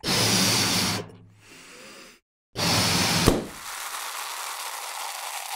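A balloon being blown up with two rushes of air, then popping sharply about three seconds in. A long splashing hiss follows and slowly fades.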